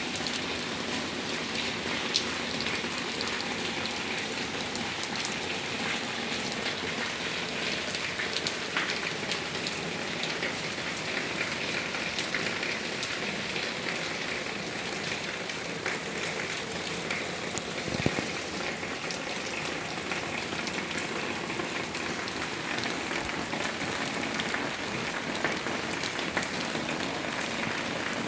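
Rain falling steadily on surfaces, with now and then a louder single drop striking close by as a sharp tick.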